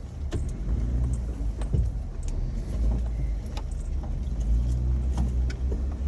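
Jeep engine running at low revs with a steady low rumble while crawling a trail, with scattered clinks and knocks of loose gear rattling throughout.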